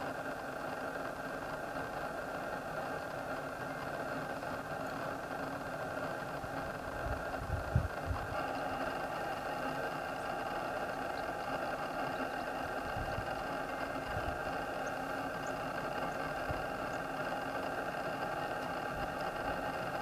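Steady mechanical hum made of several even tones, with a few low thumps about seven to eight seconds in.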